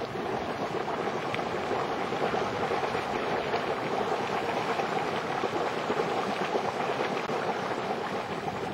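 Volcanic hot spring boiling hard at a vent, water churning and spattering steadily with a hiss of steam.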